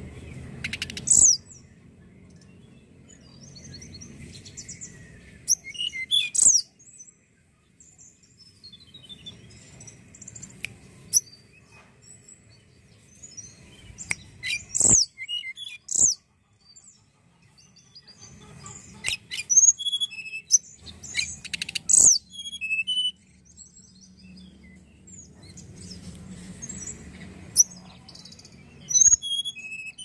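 Hill blue flycatcher (tledekan gunung) singing: short phrases of sharp, high, down-slurred notes every few seconds, with pauses between.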